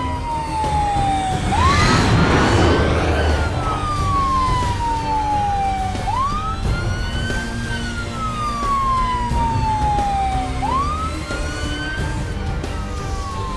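Police car siren wailing: its pitch sweeps up quickly and then slides slowly down, about once every four and a half seconds. There is a brief rushing noise about two seconds in.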